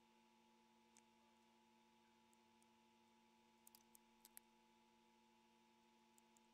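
Near silence: a faint steady electrical hum, with a few faint small clicks, twice in quick clusters in the middle and once near the end.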